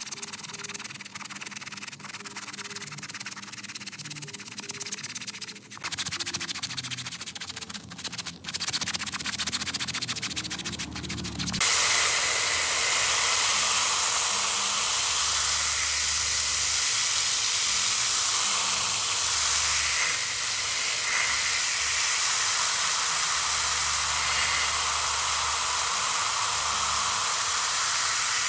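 A stiff brush scrubbing a small shaggy rug lathered with cleaning powder and foam, in rapid scratchy strokes. About twelve seconds in it cuts abruptly to the steady, loud hiss of a water spray rinsing the rug.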